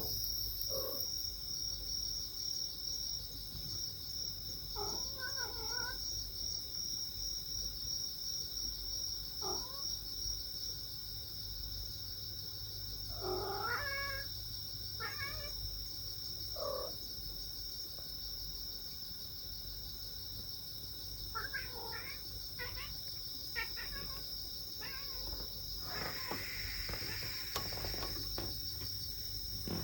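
Stray cats meowing: about a dozen short calls, clustered near the middle and again about three-quarters through. Crickets chirp steadily behind them.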